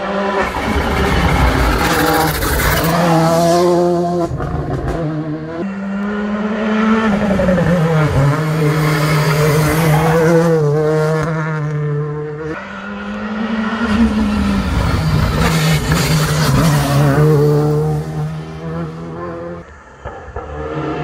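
A rally car's engine at full throttle on a tarmac stage through a hairpin. It revs up through the gears with a drop in pitch at each shift, falls away under braking into the bend, then accelerates hard out of it. It drops off briefly near the end.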